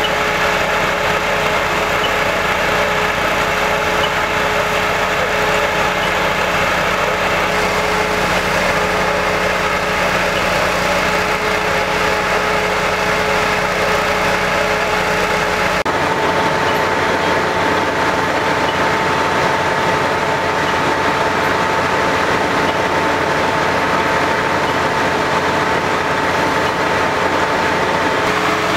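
Fire truck engine running steadily at idle, a constant drone with a steady hum. About halfway through the sound changes suddenly and the hum moves to a higher note.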